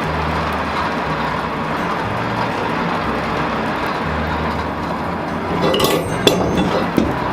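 Steady grinding noise of an abrasive tool working the steel head of a straight-peen sledgehammer, with a few sharp metallic clinks near the end.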